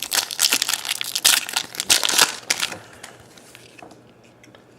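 Foil trading-card pack wrapper crinkling and crackling as it is torn open and crumpled, dense for about the first three seconds, then only faint handling ticks.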